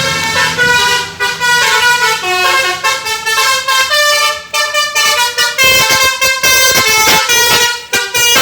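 Bus telolet horn: a bus's multi-tone musical horn playing a quick tune of stepped notes. The notes come in short, choppy blasts in the second half.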